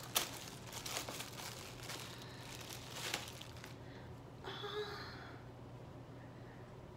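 Clear plastic bag crinkling and rustling as a cloth face mask is pulled out of it, in a run of short crackles over the first few seconds. About halfway through comes a brief vocal sound, after which it goes quieter.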